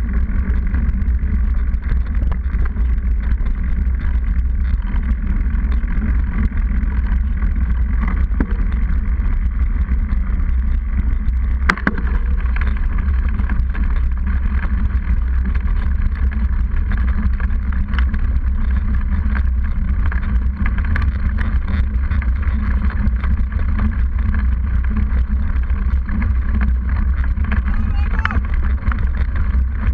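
Steady low rumble of wind buffeting and road vibration picked up by a camera mounted on a mountain bike's seatpost, with the knobby rear tyre rolling on paved road. One sharp click a little under twelve seconds in.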